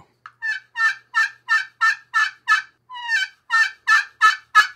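Anodized aluminum turkey pot call, with the larger hole in its back, worked with a striker: a run of short turkey yelps, about two and a half a second, a brief break a little past halfway, then a second run of yelps.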